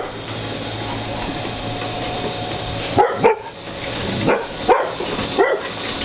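The tram's electric cable winch hums steadily, then stops about three seconds in as the cart reaches the top. A dog then barks about five times.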